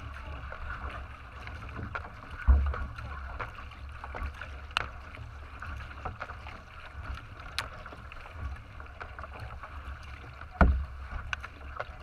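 Water rushing and splashing along the bow of a racing kayak under way, with a steady low rumble of wind on the microphone and scattered small clicks. Two heavy thumps stand out, one about two and a half seconds in and one near the end.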